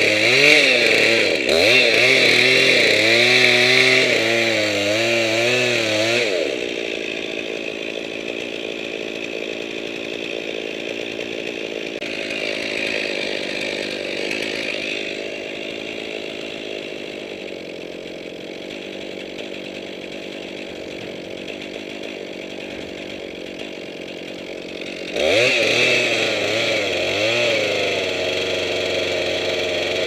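Gas chainsaw running at high revs with a wavering pitch, dropping to idle about six seconds in and revved up again about five seconds before the end.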